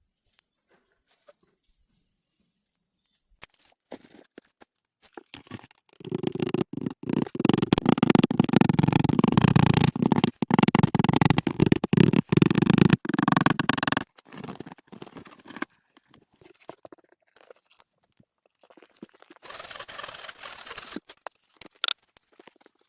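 Close rustling, scraping and crackling handling noise, dense with small clicks. It comes in about six seconds in, runs loud for several seconds, then thins out, with a shorter burst near the end.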